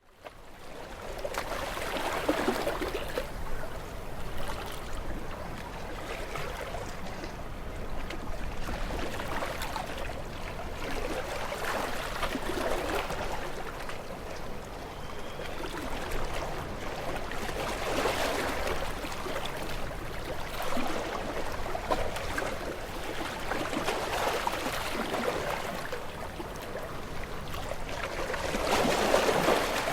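Ocean waves breaking against rocks: a continuous wash of surf that surges louder every few seconds as each wave comes in.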